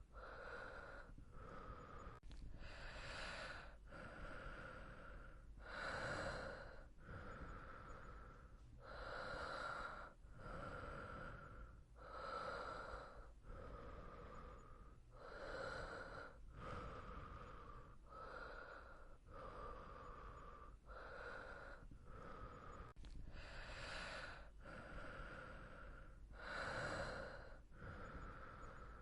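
A person breathing softly and slowly in sleep, a steady in-and-out rhythm with a fuller, airier breath about every three seconds.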